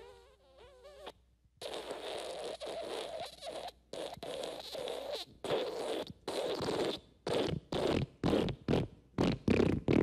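Fart sound effects. First a short, high, wavering fart, then a long sputtering one, and then a run of short fart bursts that come faster and faster toward the end.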